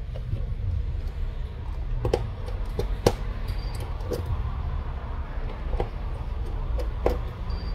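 Light, scattered clicks and taps from a small screwdriver and tiny screws being handled on a smartphone's frame, over a steady low hum.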